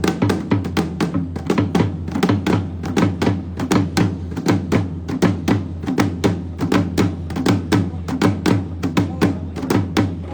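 Drums beaten in a fast, steady rhythm of about five strokes a second, over a steady low hum, during a sound check of the band's drums.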